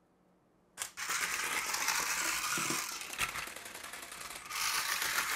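Frilled lizard robot kit switched on with a click about a second in, then its small electric motor and plastic gears running with a steady rattling whir, quieter for a moment past the middle.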